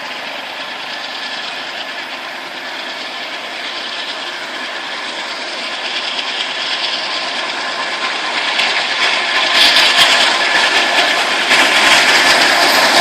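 Train approaching, its running noise a steady mechanical rumble and hiss with a few faint steady tones, growing gradually louder and stepping up noticeably near the end.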